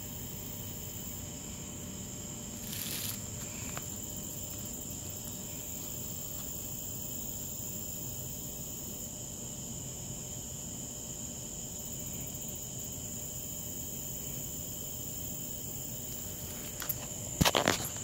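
Steady, high-pitched trilling of insects, unbroken throughout. Near the end a few loud knocks and rustles of the camera being handled cut across it.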